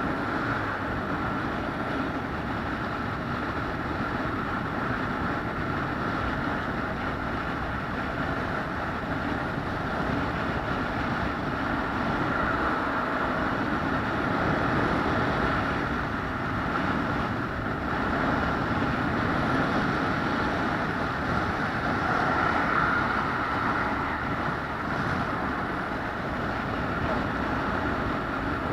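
Steady running noise of a moving vehicle, even and unbroken.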